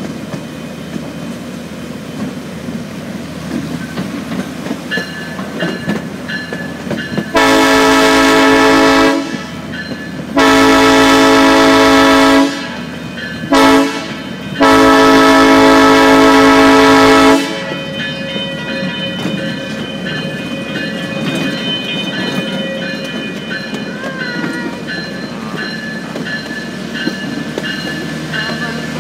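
Train horn sounding the grade-crossing signal: two long blasts, a short one and a final long one. Under it, the steady rumble of the train running on the rails.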